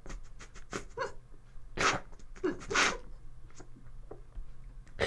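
A woman sobbing: shaky, catching breaths and whimpers, with two louder gasping sobs near the middle.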